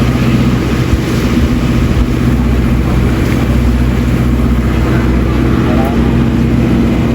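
Tour boat's engine running steadily, a low, even drone.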